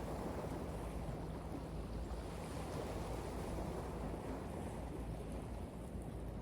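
Ocean waves washing onto a beach: a steady, low rumbling wash of surf, with some wind on the microphone.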